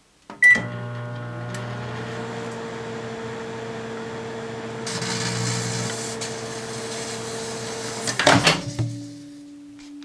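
Microwave oven starting with a short beep and click, then running with its steady hum and a fan tone that rises as it spins up. About five seconds in a hiss swells for about a second as the two touching grapes arc into plasma. Loud clicks just after eight seconds as the oven stops and the door latch opens, leaving a lower tone winding down.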